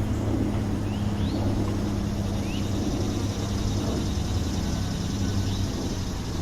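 Urban park ambience: a steady low traffic rumble with a droning engine hum that dies away near the end, and a few short rising bird chirps.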